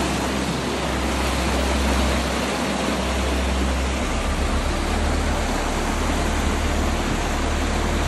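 Creek water pouring over the lip of a waterfall, heard from right at the top: a steady rushing hiss with a deep rumble under it.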